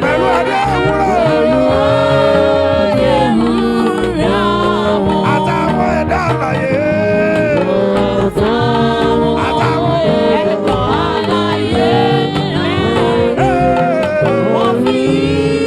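Live gospel praise music: singing over band accompaniment, continuous and loud.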